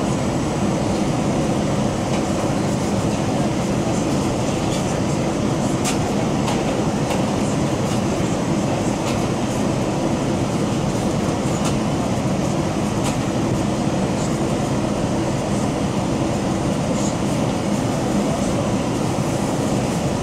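Steady cabin noise inside a Boeing 787-9 airliner on its approach: the rush of air past the fuselage and the drone of the turbofan engines, with a few light ticks from the cabin.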